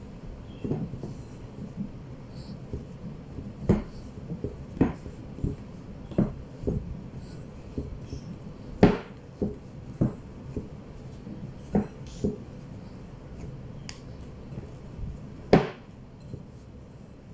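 Bread dough being kneaded by hand in a bowl: irregular dull knocks and thumps as the hand presses and the bowl bumps on a wooden table, about a dozen in all, the loudest about halfway through and near the end.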